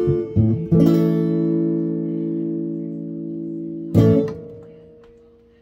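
Acoustic guitar playing the closing chords of a song: a few quick plucked notes, a chord left to ring, then a last strummed chord about four seconds in that fades away.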